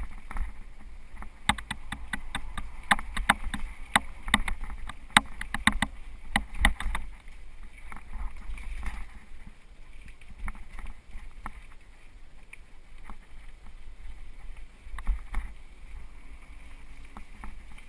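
Mountain bike rattling and clattering over a bumpy dirt trail, the sharp knocks thickest in the first half, over a steady low rumble of wind on the microphone.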